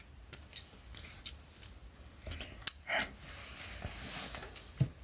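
Plastic joints and panels of a Transformers action figure clicking and rattling as it is twisted and folded by hand, in scattered sharp clicks, with a soft hiss for about a second past the middle.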